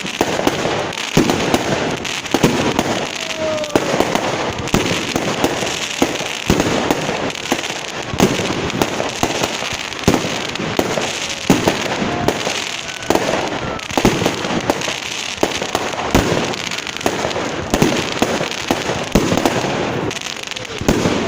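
Fireworks display: a rapid, irregular run of bangs and crackling bursts, many per second, over a continuous rumble and crackle.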